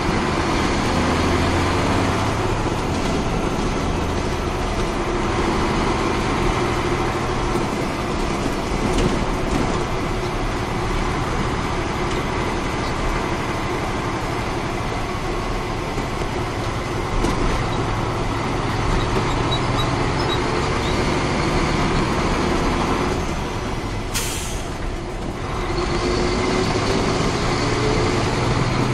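Caterpillar 3406 inline-six diesel of a 1994 Ford L9000 truck running while driving, heard from the cab: a steady drone whose pitch drifts up and down. Near the end there is a short hiss of air and the engine drops away for a couple of seconds, then it pulls again with a rising pitch.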